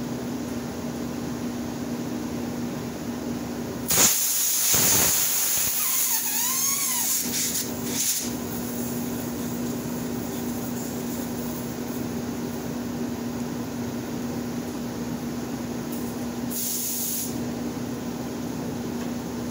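Compressed air hissing loudly into a 14-ply truck tire on a tire-changing machine, in one long blast about four seconds in, with a wavering whistle partway through, and a shorter blast near the end, as the tire is being aired up toward 110 psi. A steady low hum runs underneath.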